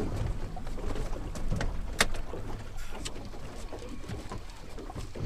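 Wind rumbling on the microphone and water lapping at a small boat, with a few light clicks and one sharp knock about two seconds in.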